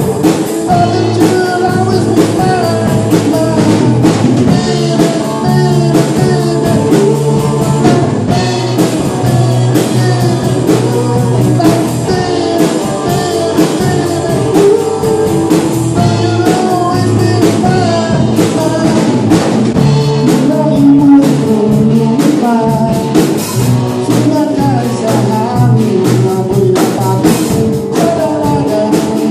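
Live rock band playing: electric guitars, bass and a drum kit keeping a steady beat, with a male lead vocalist singing over them.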